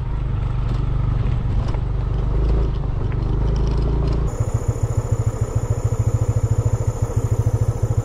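Motor scooter engine running with a steady low rumble while riding, then, after an abrupt change about four seconds in, the engine pulsing evenly and rapidly at idle.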